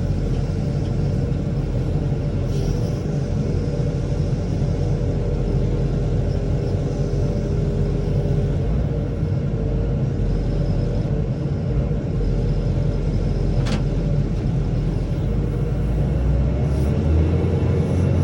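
Engine of the hay-bale loading machine running steadily, with a single sharp click about fourteen seconds in.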